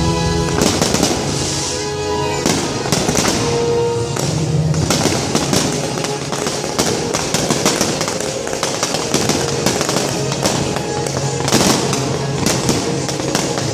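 Aerial fireworks display: many shells bursting and crackling in rapid succession over loud show music.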